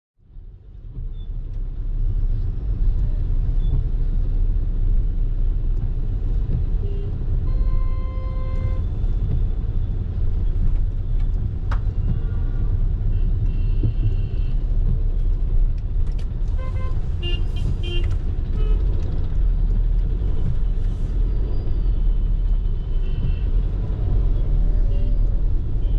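Road traffic with a steady, heavy low rumble of vehicles. Horns sound several times: once about eight seconds in, then in short blasts from about thirteen to eighteen seconds in.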